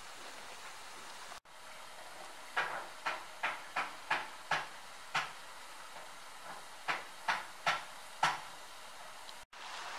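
Footsteps on track ballast, about eleven steps at a walking pace in two runs, over a steady hiss of steam from locomotives standing in steam.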